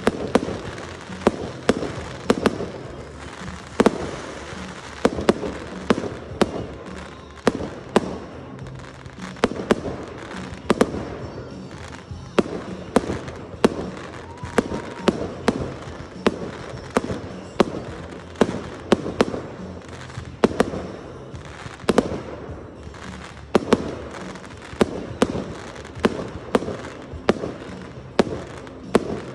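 Aerial firework shells bursting in quick succession: sharp bangs about once or twice a second over a continuous background of launches and bursts.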